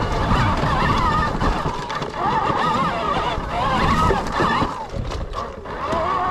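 Sur-Ron electric dirt bike's motor whining, its pitch rising and falling with the throttle, over a low rumble of tyres and wind.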